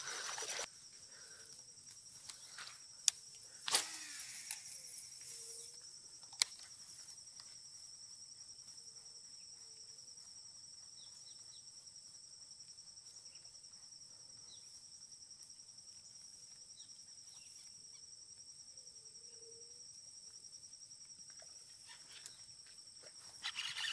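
Insects chirring steadily at a high pitch, with a few sharp clicks in the first several seconds.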